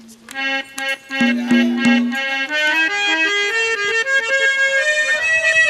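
Instrumental interlude of Haryanvi ragni music: a reedy, harmonium-toned keyboard melody of held notes that climbs step by step and then settles on a high note, with a few light drum strokes in the first two seconds.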